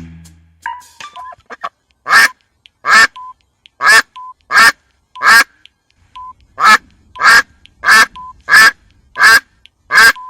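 A duck quacking repeatedly: about a dozen short, loud quacks at uneven spacing, beginning about two seconds in.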